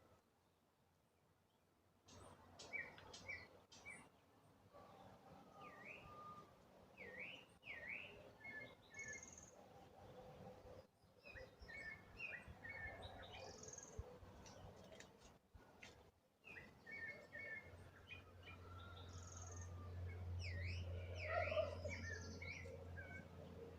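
Birds chirping and calling: many short chirps and quick down-and-up calls from about two seconds in, with a low steady hum growing under them near the end.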